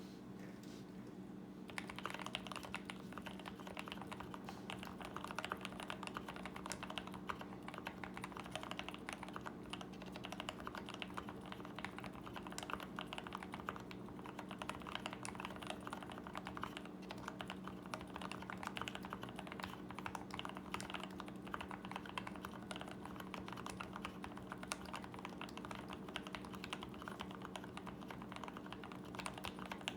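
Continuous typing on a custom Key 65 mechanical keyboard with an aluminium plate, lubed Turquoise Tealios linear switches with 65 g springs, and PBT keycaps: a dense run of keystrokes starting about two seconds in. A steady low hum sits underneath.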